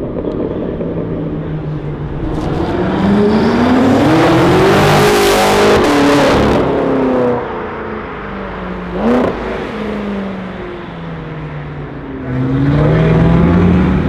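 BMW M5 F10's twin-turbo V8 through an Akrapovic exhaust, accelerating past: the engine note rises to its loudest about five seconds in, then drops in pitch as the car moves off, with a short sharp blip about nine seconds in. Near the end another car's engine revs up.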